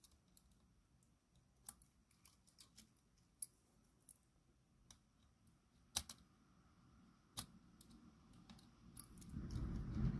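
Faint, scattered small clicks of a fine screwdriver turning a tiny screw into the underframe of an Airfix Royal Scot model locomotive chassis. Two sharper clicks come about six and seven seconds in. A soft rustle of fingers handling the chassis follows near the end.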